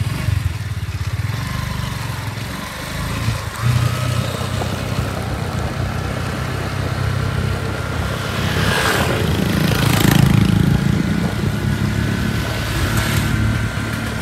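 Motorbike engine running steadily while being ridden along a wet road, with two brief rushes of noise about nine and ten seconds in.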